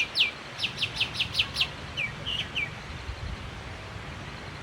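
A songbird singing a rapid series of sharp, downward-sliding whistled notes, about five a second, ending about a second and a half in, followed by a few softer notes; after that only a steady low background rumble remains.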